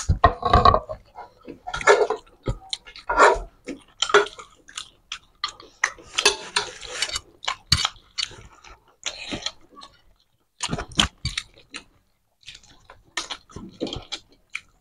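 Close, wet chewing and mouth-smacking of two people eating mutton curry and rice with their hands. It comes in irregular short clicks and bursts, with a couple of brief pauses.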